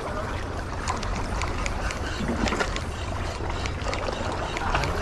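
Wind buffeting the microphone, a steady low rumble, over small sea waves lapping and splashing against shoreline rocks with scattered little clicks.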